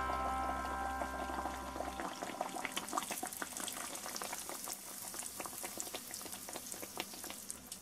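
Bake dough deep-frying in hot oil: a dense, steady crackle and bubbling. The tail of a music chord fades out during the first two seconds.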